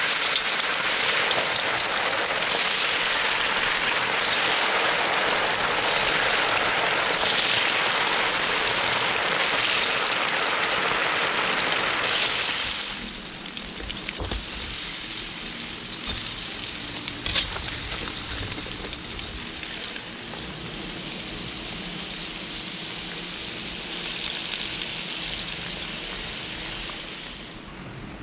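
Pork ribs deep-frying in a wok of hot oil: a dense, loud sizzle that eases to a quieter, crackling sizzle about halfway through.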